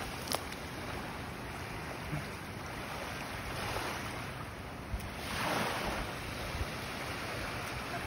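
Small waves lapping and washing on a sandy shore, with one wave washing in a little louder past halfway.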